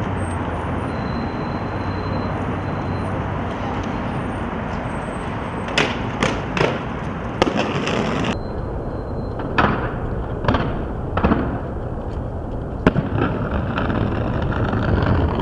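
Aggressive inline skates on concrete: the wheels make a steady rough rolling noise, broken about halfway through by a quick run of four sharp clacks as the skates hit the ground on landing. A few softer knocks and one more sharp clack follow.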